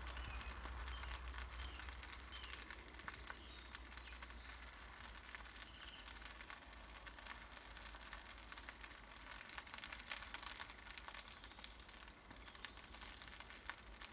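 Bonfire crackling faintly, with many small irregular pops and snaps over a low rumble.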